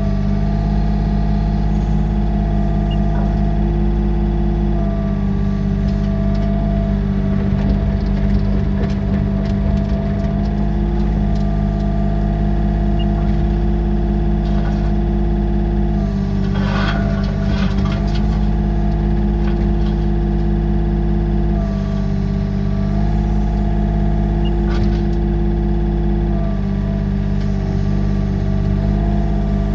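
Yanmar mini excavator's diesel engine running steadily under the cab, with the hydraulics whining and stepping in pitch every few seconds as the boom and bucket are worked. A short scraping rattle of the bucket in gravel comes just past halfway.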